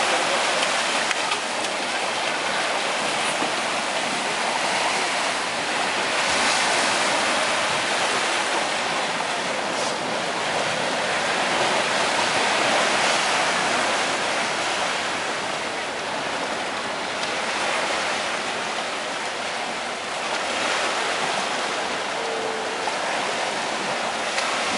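Surf breaking and washing up a sandy beach: a steady rushing hiss that swells and eases with the waves.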